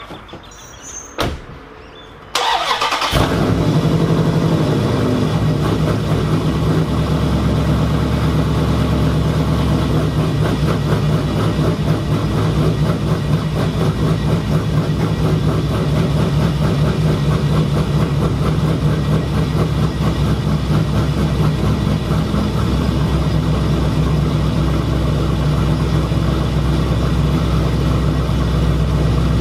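Modified 2016 Dodge Charger's V8, fitted with an aftermarket camshaft and long-tube headers, starts up about two seconds in and then idles steadily and loudly.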